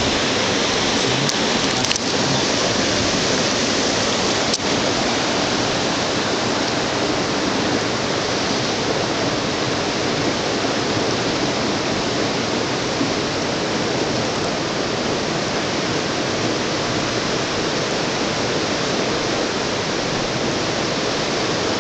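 Steady rush of a rocky mountain river's current and nearby rapids running over boulders.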